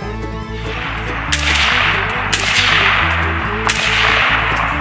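Three sharp cracks about a second apart, each followed by a long hissing tail, over bluegrass music with a steady bass line.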